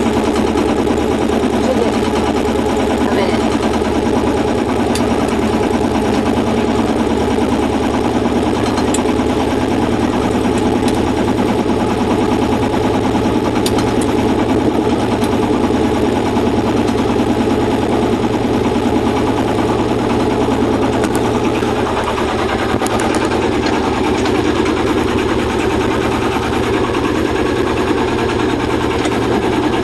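Sailboat's engine running steadily with a fast, even pulsing beat.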